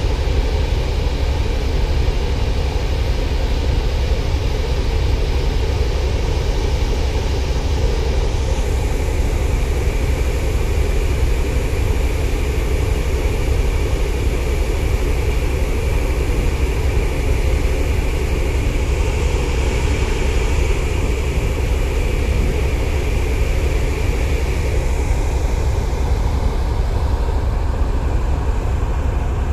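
Steady, loud rumbling drone aboard a moving car ferry, from its engines and the sea rushing past the hull.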